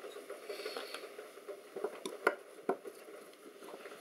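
Handling noise as a metal heat-sink plate is worked loose and lifted out of a metal chassis: light rubbing and scraping with a few sharp clicks of metal on metal, the sharpest a little past two seconds in.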